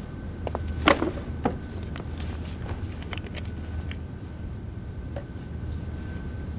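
Light knocks and clatter of a backpack being set down and a person sitting on a folding chair at a table, the loudest knock about a second in, over a low steady room hum.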